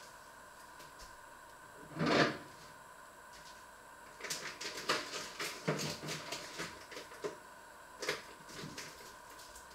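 Kitchen handling noises: a brief swish about two seconds in, then several seconds of quick clicks and knocks and a couple more near the end, over a steady faint hum.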